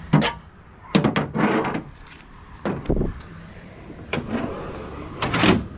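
Handling clatter in a pickup bed: a string of irregular knocks and scrapes as the folded antenna whip and its mount are handled, over the low rumble of a vehicle running.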